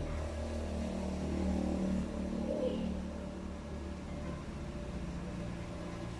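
A steady low mechanical hum, like a running engine, swelling for the first couple of seconds and then settling.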